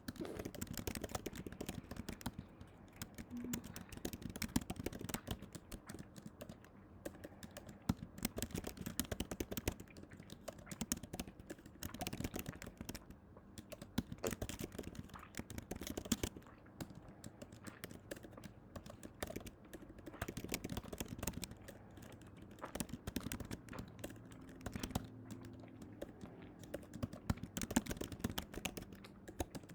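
Dense, irregular clicking and tapping, many small clicks a second.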